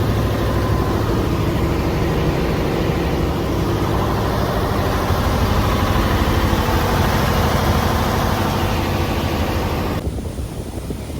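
Slow boat's engine running steadily, a heavy low hum. Near the end it drops abruptly to a quieter, duller background.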